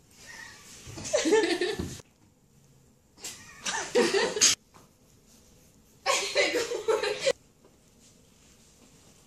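Laughter in three separate bursts, with short quiet gaps between them.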